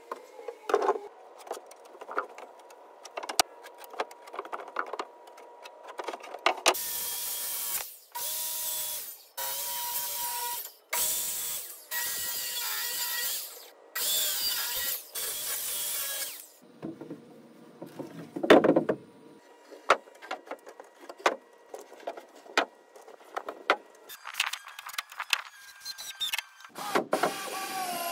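Wood-framing work: scattered knocks and taps on lumber, then a power saw cutting boards in about six short runs of a second or so each, followed by a dull thud and more knocks.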